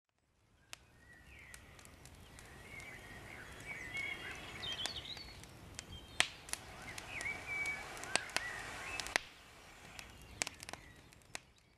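Birds singing in woodland, with a small campfire crackling and giving scattered sharp pops.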